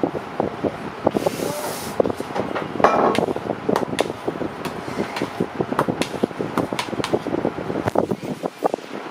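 Irregular clicks and knocks of work clatter over a steady background hum, with a short hiss about a second in.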